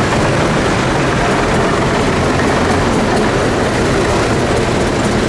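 Vintage tractor engine running steadily, a low, even drone with no change in speed.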